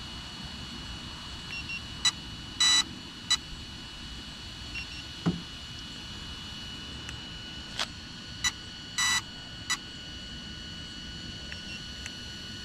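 Handheld infrared thermometer in use: scattered short trigger clicks and two brief beeps, one a little under three seconds in and one about nine seconds in, over a faint steady high-pitched tone.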